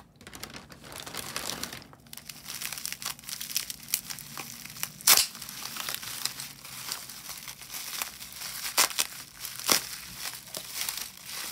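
Packaging being handled and opened by hand: steady crinkling and rustling with small clicks, and a few louder sharp crackles about halfway through and again near the end.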